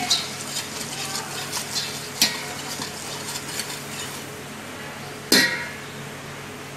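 Wire whisk stirring mushrooms and flour in hot fat in a stainless steel pot, scraping and clicking quickly against the metal over a light sizzle, while the roux cooks. The whisking stops after about four seconds; there is a sharp knock about two seconds in and a louder one just after five seconds.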